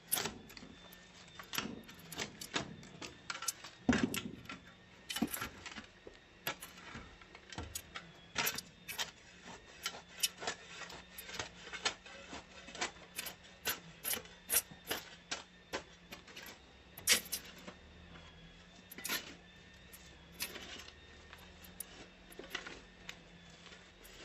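Hand-tool work on stone or concrete: irregular sharp taps and knocks, one or two a second with some quick clusters, the loudest about four seconds in and again about seventeen seconds in.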